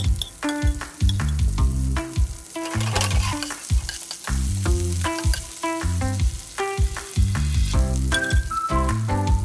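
Instrumental background music with a pulsing bass, over garlic and chopped basil sizzling in oil in a frying pan; the sizzle swells about three seconds in as the pan is stirred.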